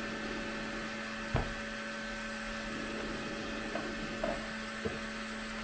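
A few small clicks and knocks of hands working a fitting inside a PC case, the sharpest about a second and a half in, over a steady electrical hum.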